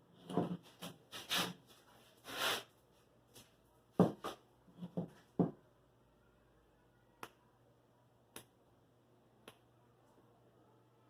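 Scattered handling noises: rubbing and rustling with several sharp knocks in the first half, then three isolated clicks a second or so apart.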